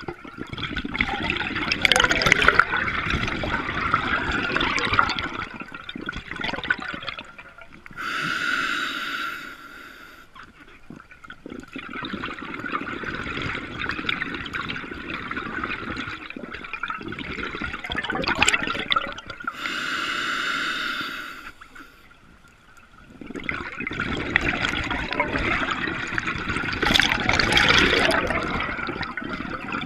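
Scuba diver breathing through a regulator underwater: long rushes of exhaled bubbles alternate with two shorter hissing inhalations, one about eight seconds in and one about twenty seconds in.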